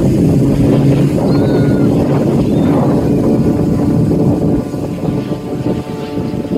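Aircraft engine noise from a plane flying past, a steady drone over a noisy wash, easing off somewhat in the last couple of seconds.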